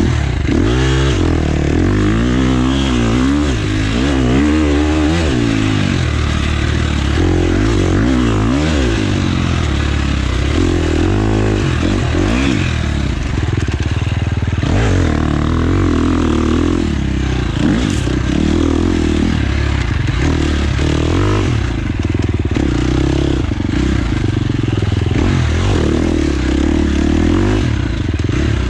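Husqvarna FX 350 four-stroke single-cylinder dirt bike engine being ridden hard, its pitch rising and falling again and again with throttle and gear changes.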